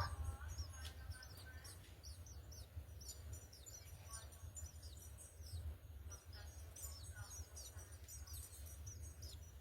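House sparrows chirping over and over in quick, short, high notes, with a steady low rumble underneath.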